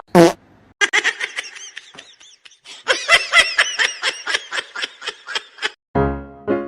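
Rapid, high-pitched giggling laughter in quick repeated bursts, after a short squeal at the start. Piano music comes in about six seconds in.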